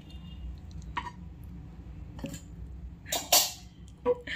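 Kitchen clinks and clatter as a spoon and ghee jar are handled at a frying pan, with a louder clatter about three seconds in, over a low steady hum.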